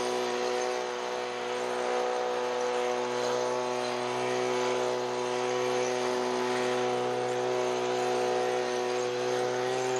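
A motor or engine running steadily at constant speed: an even hum with several steady tones over a broad hiss.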